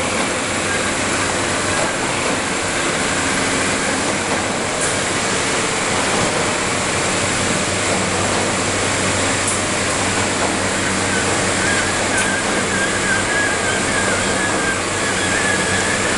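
Steady machinery noise of a Swiss roll production line, with conveyor belts and their drives running and a low hum underneath. A faint wavering whine joins about two-thirds of the way through.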